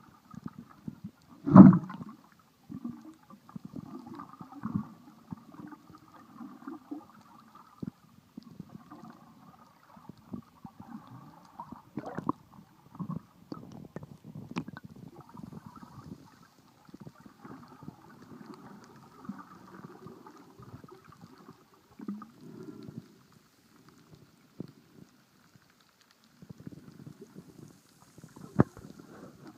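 Muffled underwater sound picked up by a camera as it moves through the sea: irregular gurgling and sloshing water. A sharp knock about a second and a half in is the loudest sound, and a few fainter clicks follow later.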